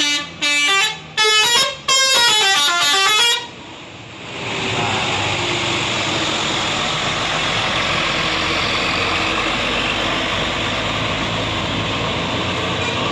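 A bus's multi-tone 'telolet' horn playing a stepping melody in four blasts, the last about a second and a half long. After a short lull, steady engine and road noise from passing traffic.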